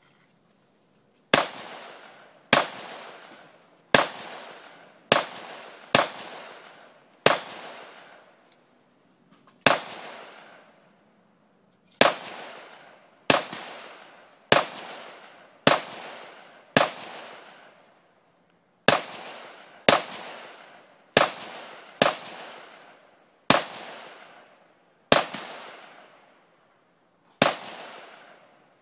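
AR-15 rifle shots fired one at a time, about twenty in all, mostly about a second apart with a few longer pauses. Each is a sharp crack with a long echoing decay, the pace of a competitor shooting through a rifle match stage.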